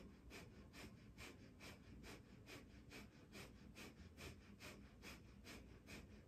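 Faint, rapid rhythmic nasal breathing, Kundalini breath of fire: short forceful exhales at a steady pace of about two to three a second.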